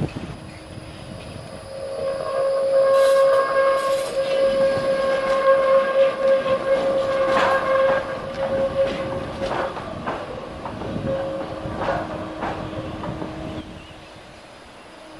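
A tram passing, with a steady whining tone held for about ten seconds and a few sharp clacks from the wheels over the track.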